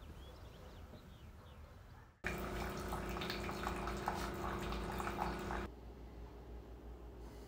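A single-serve coffee maker pours a stream of coffee into a ceramic mug, its pump humming steadily under the splashing of the pour. It starts abruptly about two seconds in and cuts off suddenly about three and a half seconds later, with quiet room tone before and after.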